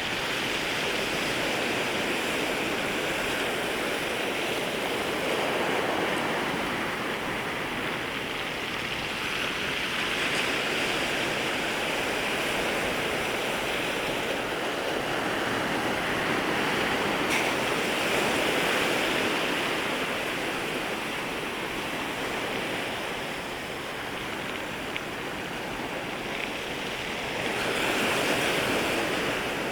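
Sea waves washing in at the shoreline, a continuous rushing surf that swells and eases every several seconds as waves break, with a stronger surge near the end.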